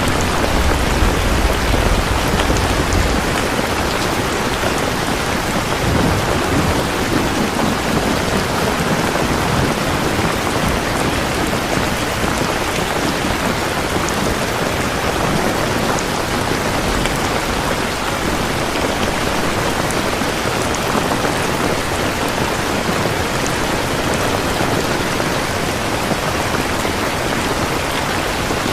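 Steady, heavy rain falling on a surface, an even hiss with a low rumble during the first three seconds.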